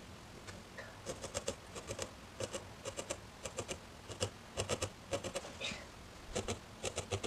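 A fine 40 gauge felting needle stabbing repeatedly into a small ball of wool to felt down a tiny eye, making faint crisp clicks in quick runs of several a second.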